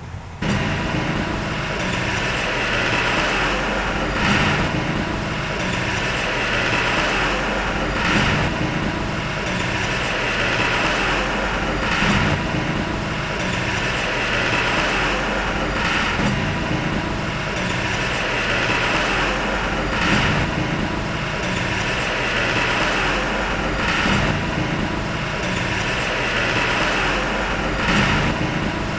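Heavy earthmoving machinery engine running steadily under load, with a regular swell about every four seconds.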